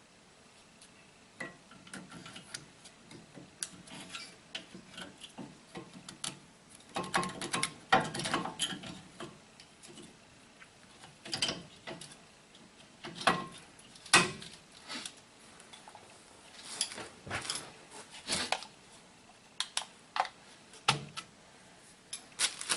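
Brake pads being fitted into a truck's front disc-brake caliper bracket: irregular metal clinks and clanks, some in quick clusters, with short pauses between.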